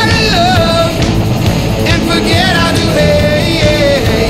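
Loud rock music: a full band with a singing voice sliding between notes.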